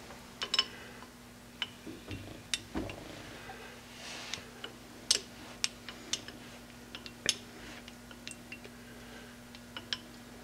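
Irregular light clicks and ticks as a lathe carriage is moved along the bed, with a dial indicator riding on top of an alignment bar. A steady low hum runs underneath.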